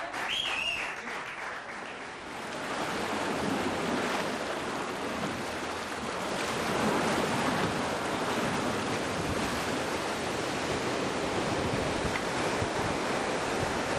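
Sea waves breaking on a beach: steady surf that swells and eases. In the first two seconds the last of an audience's applause, with a brief high whistle, fades out under it.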